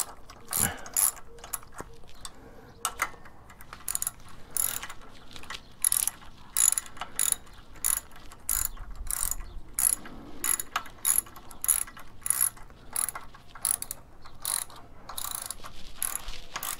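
Hand socket ratchet wrench clicking in short repeated swings, roughly two a second, as a bolt is run in while assembling a motorcycle jack.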